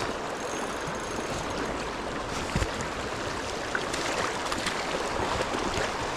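Steady rush of a trout stream's flowing water, with a sharp thump about two and a half seconds in and a few light knocks after it.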